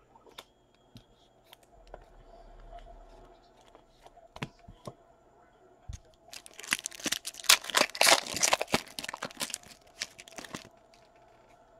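Foil trading-card pack wrapper being torn open and crinkled by hand: a loud burst of crackling that starts about six seconds in and lasts about four seconds, after a few light taps.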